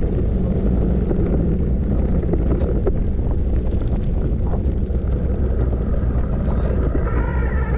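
Wind buffeting the microphone: a steady low rumbling rush.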